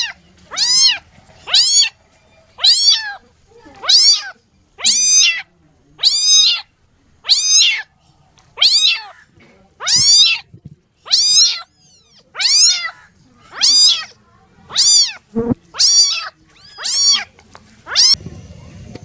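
A kitten meowing over and over, high, thin calls that each rise and then fall in pitch, about one a second.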